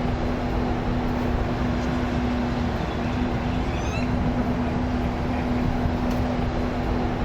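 Steady machinery hum with one constant low tone over a broad rushing noise, with a brief faint high chirp about four seconds in.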